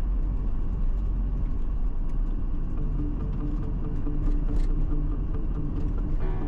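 Steady low rumble of a car driving, road and tyre noise heard from inside the vehicle.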